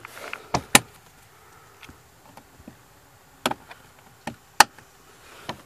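Plastic dash trim panel clips snapping into place under finger pressure: a series of sharp plastic clicks and snaps, with the loudest about three-quarters of a second in and about four and a half seconds in.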